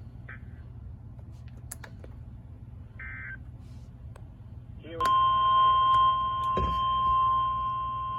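NOAA Weather Radio warning alert tone from a weather radio's speaker: one loud, steady, high beep that starts about five seconds in and holds to the end. The tone signals that a new warning broadcast is about to follow. Before it there is only a low steady hum with a couple of faint short chirps.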